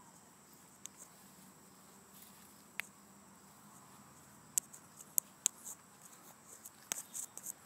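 Footsteps on dry leaf litter and wood chips: faint scattered crackles and ticks that come thicker near the end, over a faint steady high-pitched tone.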